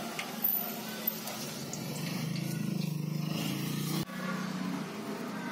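A steady low mechanical hum, like a running motor or engine, with a few light clicks in the first second or so.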